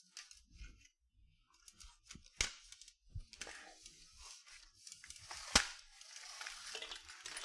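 Handling noise from the camera as it is lowered and repositioned: rubbing and scraping, with a sharp knock about two and a half seconds in and a louder one about five and a half seconds in.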